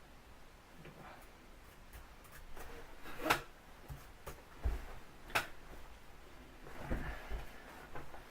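A few scattered sharp clicks and knocks, with low thumps in between: small objects being handled.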